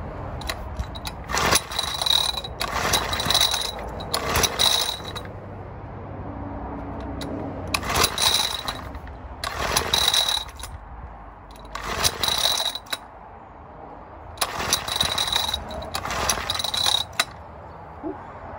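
Recoil pull-starter of a 50cc BSA stationary engine being yanked about eight times, mostly in quick pairs. Each pull is a short rasping whir of rope and pawls as the engine turns over without catching.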